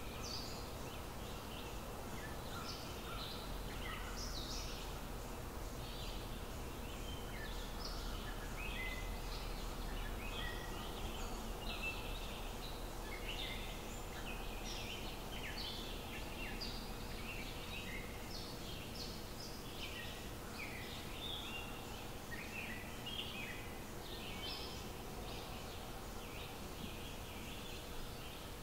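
Sliced onions sizzling and crackling in hot oil in a wok as they fry, with irregular spits and pops that start as the onions go in. A steady low hum runs underneath.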